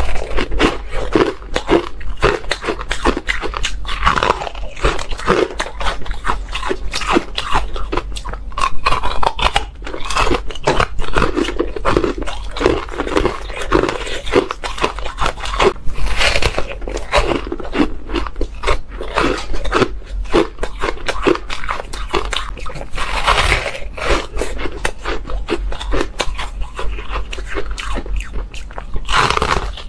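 Ice chunks being bitten and crunched between the teeth, picked up close by a clip-on microphone. The crunches come thick and irregular throughout, with a few louder bites.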